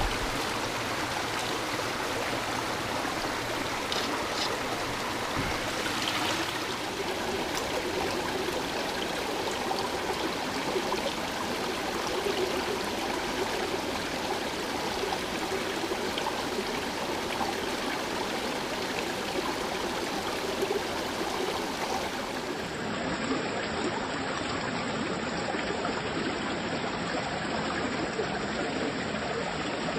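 Small mountain stream running steadily over boulders: a continuous rush of water. About two-thirds of the way in the sound turns duller, losing its hiss.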